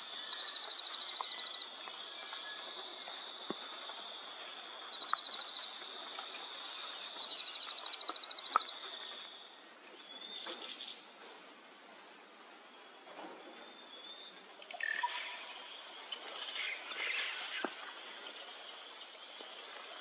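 Tropical forest insects buzzing steadily at a high pitch, with three short rapid pulsed trills in the first half. About three-quarters through comes a brief burst of sharper calls.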